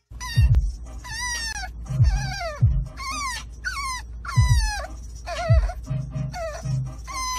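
French bulldog puppy whining and crying over and over, in short, high cries that fall in pitch.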